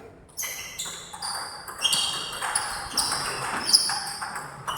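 Table tennis ball being struck and bouncing in a rally, with repeated sharp knocks and high ringing tones over them in a large room.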